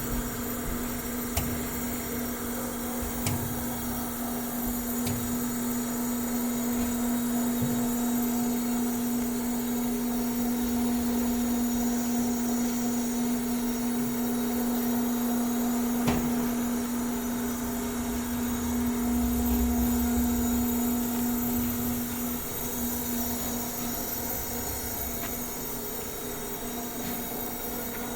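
Industrial plant machinery running: a steady electric hum over mechanical noise, with a few sharp clicks, the hum easing off a little near the end.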